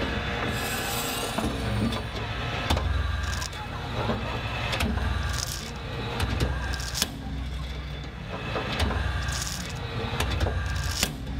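Outdoor crowd murmur with a low rumble that swells and drops, scattered clicks, and short hissing bursts every couple of seconds.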